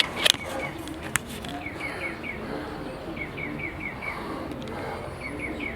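Pigeons cooing low in a loft, with runs of three or four quick high chirps repeating every second or so. A couple of sharp clicks sound near the start.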